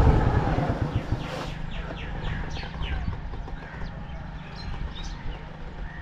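A passing motor vehicle fades out over the first two seconds. Then comes a quick run of short, sharp ticks, about three a second, with scattered small-bird chirps over a low, steady rumble.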